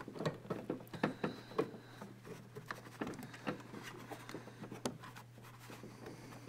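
Faint scattered clicks and rubbing from handling the 2006 Jeep Liberty's plastic door trim panel and its wiring harness, most of the clicks in the first second or two, over a steady low hum.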